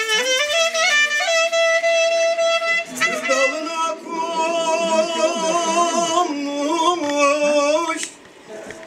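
Two clarinets playing a folk melody; voices join in singing about three seconds in. The music stops briefly near the end.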